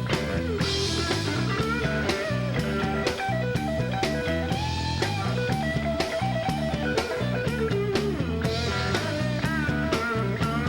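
Rock band playing a song: guitar lines over a steady drum-kit beat.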